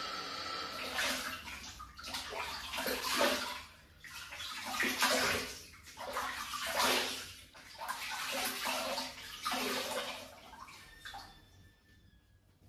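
Water splashing as hands scoop it up over a basin and onto a face, in irregular splashes about every second, dying away near the end.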